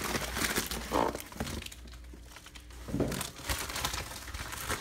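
Rustling and crinkling of packaging in several irregular bursts as a bagged action figure is taken out of a cardboard box: the box being shifted and a clear plastic bag being handled.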